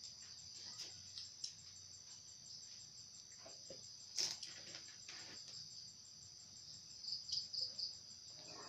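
Crickets trilling steadily, a faint high continuous chorus, with a few soft clicks and knocks, the sharpest about four seconds in.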